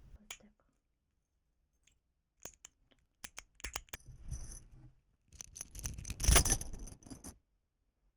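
Keys of a small keyboard fidget toy clicking: a few separate sharp clicks, then a quick run of clacking about five to seven seconds in, with a light metallic ring on top.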